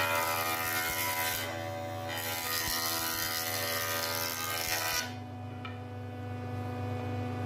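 Jointer planing an oak barrel stave as it is pushed across the spinning cutterhead: a loud, high cutting whine over the motor's steady hum. The cutting stops about five seconds in, leaving the machine idling with just its hum.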